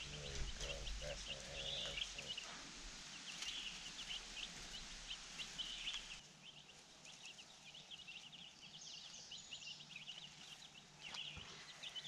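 A flock of young meat-chicken chicks peeping, many short high chirps overlapping continuously.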